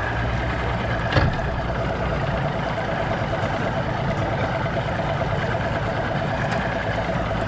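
Mercury outboard motor idling steadily, with a single sharp knock about a second in.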